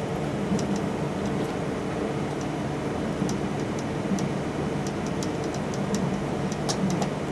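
Steady running noise heard inside an E6-series Komachi Shinkansen car at speed: an even rumble with a constant low hum. Light, high ticks come and go throughout, a little more often in the second half.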